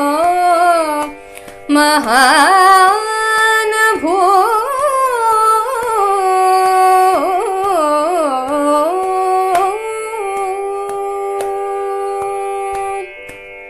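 A woman singing in Carnatic classical style, holding long vowels with gliding, wavering ornaments over a steady drone. There is a brief break about a second in, and the voice stops about 13 seconds in, leaving the drone sounding.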